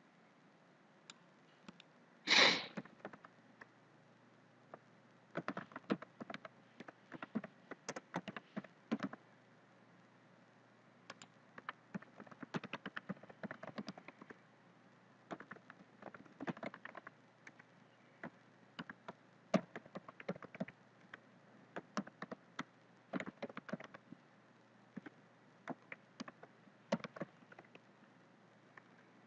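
Computer keyboard typing: quick runs of keystrokes in bursts, with short pauses between, as text is entered field after field. A single brief, louder noise about two and a half seconds in.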